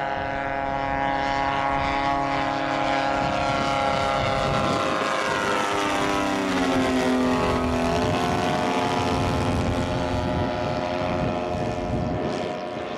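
Two large-scale RC model planes' engines, a 60cc EME and a smaller 40cc, droning together in formation flight. Their overlapping tones drop in pitch as the planes pass close about halfway through, then steady.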